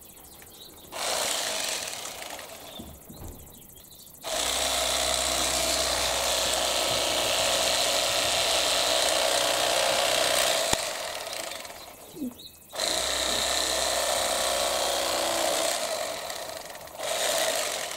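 Electric fillet knife running in several bursts as it cuts yellow perch fillets: a short burst about a second in, a long run of about eight seconds from about four seconds in, another of about four seconds, and a short burst near the end. Each run tapers off as the motor is released.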